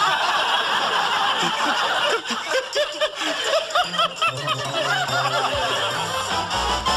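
Audience laughter breaking out at once after a sitcom punchline, thinning into scattered chuckles. A short music sting with low bass notes comes in about four seconds in.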